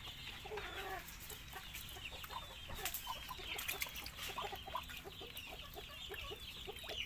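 A duckling peeping rapidly and without a break, many short high chirps, with short lower calls scattered among them.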